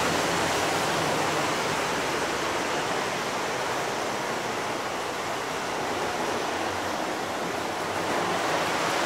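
Lionel O gauge model trains running on the layout's track: a steady rushing rumble of wheels and electric motors that eases slightly in the middle and picks up again near the end.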